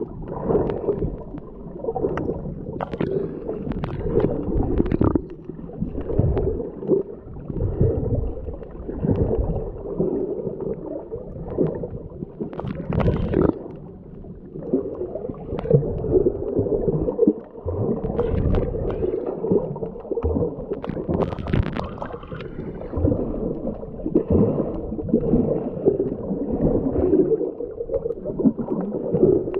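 Muffled water sloshing and gurgling in irregular surges, most of it low in pitch, as heard through a camera that is in or at the water.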